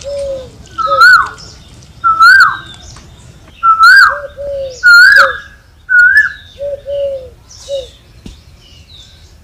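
Birds calling: a loud chirp that rises and then falls in pitch, repeated about once a second, mixed with lower, shorter notes. After about six seconds only softer calls remain.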